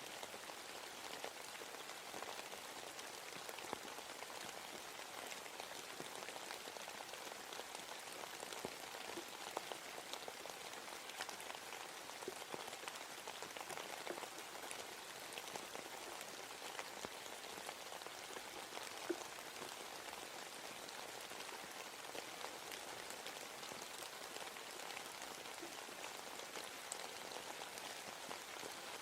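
Steady rain falling in a forest, a dense patter of drops hitting leaves and the ground.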